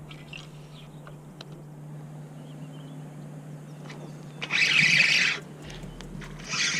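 Quiet outdoor background with a steady low hum and a faint bird chirp. Two short hissing rushes of about a second each come in about four and a half seconds in and again at the very end.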